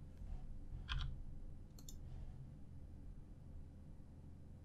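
Two faint computer mouse clicks, about one and two seconds in, over a low steady hum.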